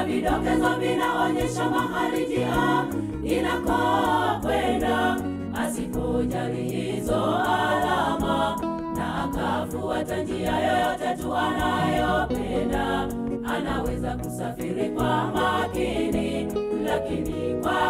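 Women's choir singing a gospel song, several voices together over low sustained notes, continuous throughout.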